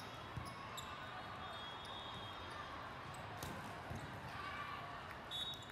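Volleyball rally: the ball smacks off players' forearms and hands several times, with short high squeaks of shoes on the court. Spectators chatter steadily underneath.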